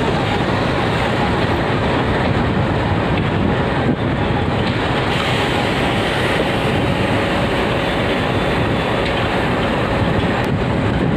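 Passenger coaches of an Indian Railways express rolling past on the rails as the train pulls out: a loud, steady noise of wheels on track.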